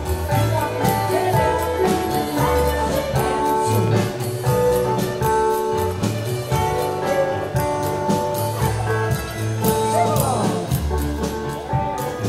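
Live contra dance band playing a dance tune: held melody notes over a pulsing bass and a steady beat.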